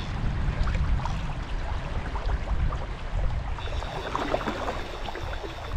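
Fast river water rushing and gurgling steadily around the wader, with a heavy low rumble underneath.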